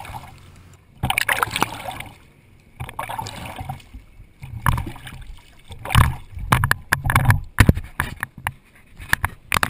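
Paddle strokes in water, heard from a GoPro mounted on the paddle shaft: water splashing and gurgling against the blade and camera housing, surging with each dip of the paddle about every second or so. Sharp knocks and clicks come near the end.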